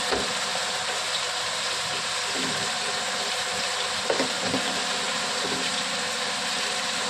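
Cauliflower and onions sizzling steadily as they fry in oil in a pan, with a few knocks of a spoon stirring against the pan, two close together about four seconds in.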